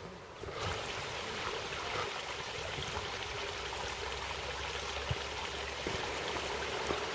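Small stream of water running and trickling over stones: a steady rushing noise that starts about half a second in.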